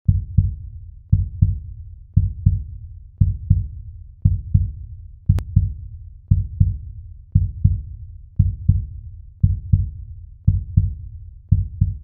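Heartbeat-style intro sound effect: low double thumps, about one pair a second, with a single sharp click about five seconds in.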